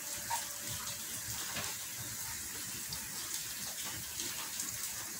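Bolinhos de chuva (sweet fritters) deep-frying in a pot of hot oil: a steady sizzling hiss.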